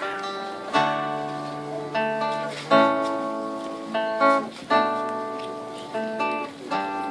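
Two acoustic guitars strumming slow chords in a song's instrumental introduction, a new chord struck about once a second and left to ring.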